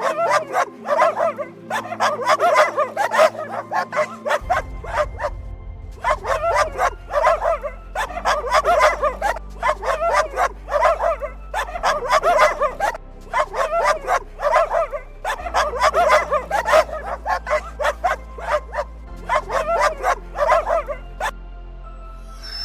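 A dog barking in rapid volleys of many short barks, with brief pauses between volleys, over background music with slow held bass notes. The barking stops a second or so before the end.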